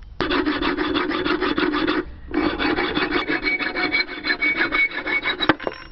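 Hacksaw cutting through an aluminium bar about 3 mm thick clamped in a bench vise: quick back-and-forth strokes, a short pause about two seconds in, then a second run with a thin metallic ring over the strokes that stops shortly before the end.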